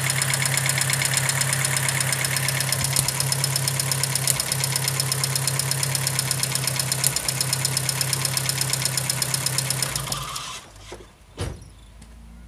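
VW Gol G4's four-cylinder EA111 engine idling with a misfire, caused by spark leaking at the third cylinder's ignition coil terminal through a plug wire with no resistance. The engine is switched off about ten seconds in, followed by a single knock.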